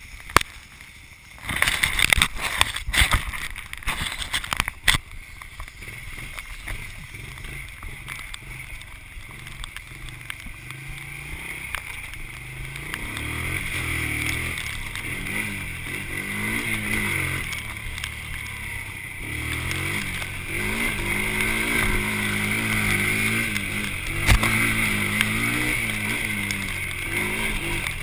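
A few sharp knocks and rubs of the camera being handled in the first seconds, then the Honda TRX90 Sportrax quad's small four-stroke single-cylinder engine running, its pitch rising and falling with the throttle and growing louder as it rides.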